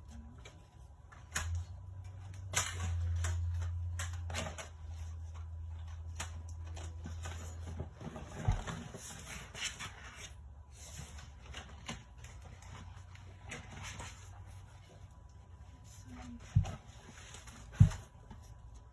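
Handling noise of LED light bars being slipped and clipped onto a fabric photo lightbox: scattered small clicks and taps, with a low steady hum through the first half and two sharp knocks near the end.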